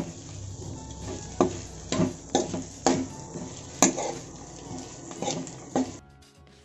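Pork fry being stirred in a non-stick wok with a metal spoon: the spoon scrapes and clicks against the pan about every half second over a low sizzle, as the meat is fried dry. The stirring stops about six seconds in.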